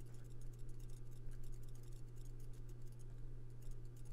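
Faint, rapid, irregular clicks and ticks from a computer mouse being worked while painting, over a steady low hum.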